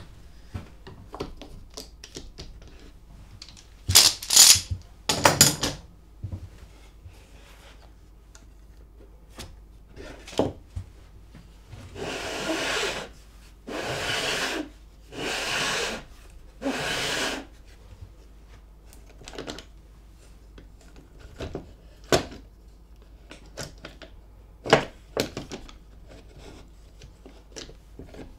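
Plywood jig being handled: a burst of loud wooden knocks and clatter about four seconds in, then the plywood router carriage slid back and forth along the jig's plywood rails four times, each a rubbing scrape of about a second. Scattered clicks and taps come between.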